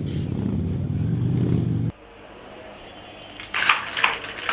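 Motorcycle engine running with a rapid low pulsing, cut off abruptly about two seconds in. A few brief rustling noises follow near the end.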